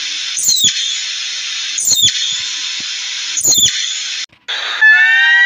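Palm squirrel calling: sharp, high chirps that drop in pitch, about every one and a half seconds, over a continuous high hissing chatter. Near the end the sound cuts briefly, and a different held whining tone with several pitches begins.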